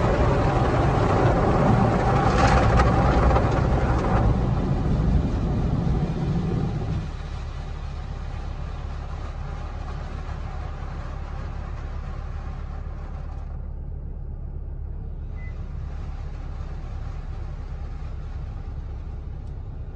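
An automatic car wash machine heard from inside the car's cabin: a loud, even rushing noise that dies away about seven seconds in, leaving a steady low hum.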